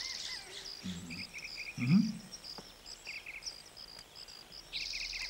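Jungle ambience of high chirps and short quick trills from birds or insects. Two short low sounds come about one and two seconds in, the second the loudest.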